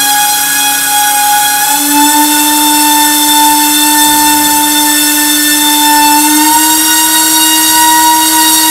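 Small brushless motor spinning a 4052 propeller on a static thrust-test stand: a loud, steady whine that steps up in pitch twice, about two seconds in and again about six and a half seconds in, as the throttle is raised and the thrust climbs.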